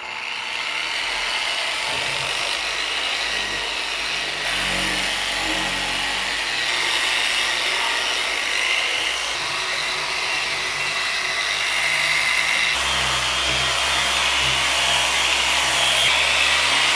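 Electric dual-action polisher running steadily with a foam pad, buffing rubbing compound into the clear coat of a motorcycle fuel tank. Its sound shifts a couple of times as the pad moves over the tank, and a lower hum comes in about two-thirds of the way through.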